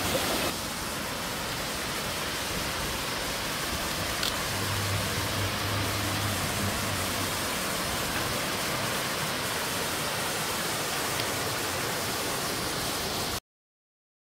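Waterfall rushing steadily over rock ledges, the falls running low at a gentle flow. The sound cuts off suddenly near the end.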